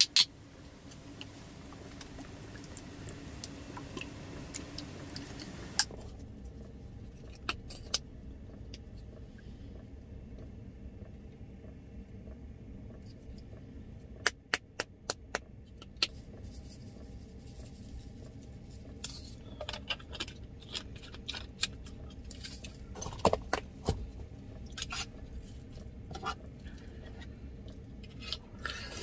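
Chopsticks clicking and scraping against a stainless steel plate as a rice dish is mixed, with a quick run of about five sharp clicks midway and scattered clicks later. A low steady hum runs underneath.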